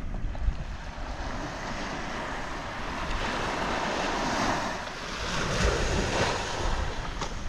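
Small surf breaking and washing up the sand, swelling twice, with wind buffeting the microphone.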